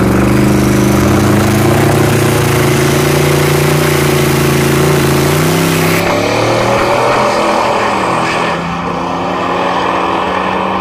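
Drag racing cars running at full throttle away from the start line down the strip, the engine note held steady for about five seconds. About six seconds in the sound changes abruptly and a rising engine note follows.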